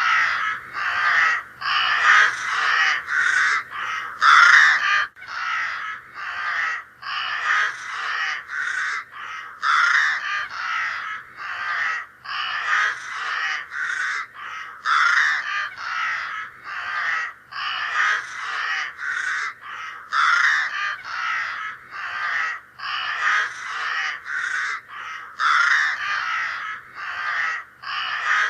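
Crow cawing: a continuous run of harsh caws, about two a second, with no pauses.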